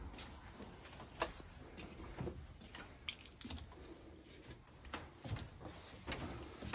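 Footsteps on a slatted wooden porch floor: scattered, irregular light knocks and clicks over a low background hush, the sharpest about a second in.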